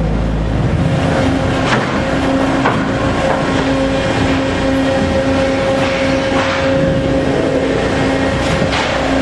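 Omag Phoenix cuber travelling, its drive giving a steady hum with a few sharp pops at irregular intervals. The uploader says the popping is not a mechanical issue: machine settings change how often it happens but do not eliminate it.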